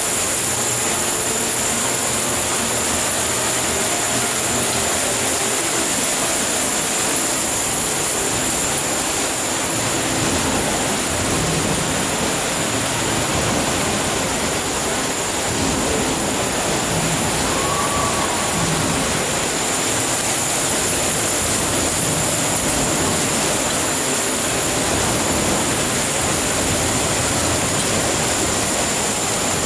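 Casino floor ambience: a dense, steady wash of indoor noise with faint scattered tones in it and a steady high-pitched whine over the top.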